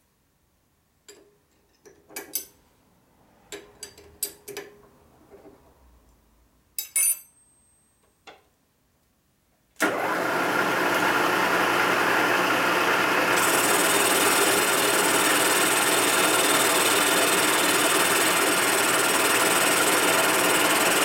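A few scattered clicks and knocks of hands working the milling machine, then about ten seconds in its spindle motor starts and runs steadily and loudly, the sound getting brighter a few seconds later.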